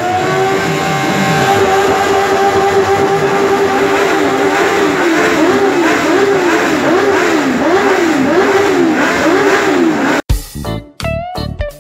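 Suzuki Hayabusa's inline-four engine running at a steady pitch for several seconds, then revved up and down in quick repeated throttle blips, about two a second. Near the end it cuts off suddenly to electric guitar music.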